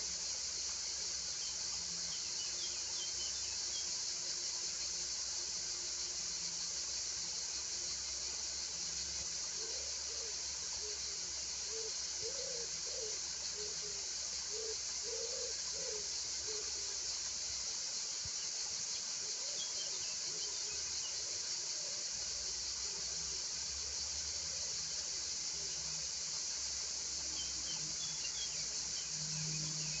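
Crickets chirring in a steady, unbroken, high-pitched drone.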